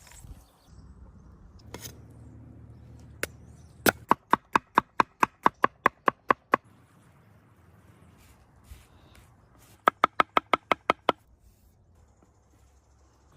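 Two runs of sharp, evenly spaced knocks with a slight ring: about a dozen at some four a second starting about four seconds in, then a quicker run of about eight near the ten-second mark. They sound like a knife chopping on a board.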